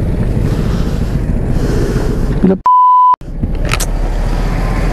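Wind buffeting the helmet-camera microphone over a low rumble, cut about two and a half seconds in by a single steady censor bleep about half a second long, with a moment of silence either side.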